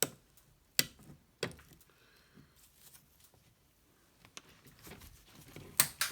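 Side cutters snipping off the excess wire of a steel Helicoil insert, a few sharp clicks. The first is the loudest, two more follow within about a second and a half, and a couple of fainter clicks come near the end.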